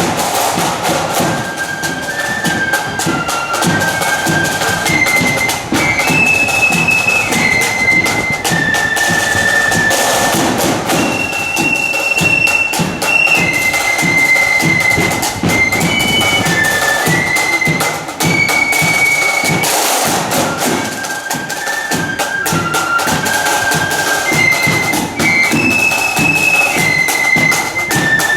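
Marching flute band playing a tune: flutes carry a high melody over snare and bass drums. The opening phrase of the melody comes round again about twenty seconds in.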